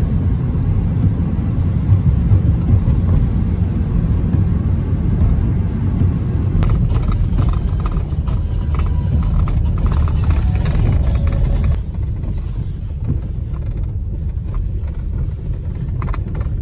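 Low, steady vehicle rumble that eases slightly about twelve seconds in.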